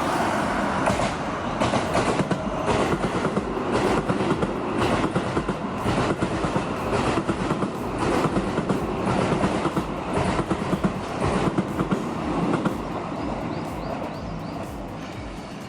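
Keio Line electric commuter train passing close by, its wheels clicking steadily over the rail joints. The sound fades away near the end as the train moves off.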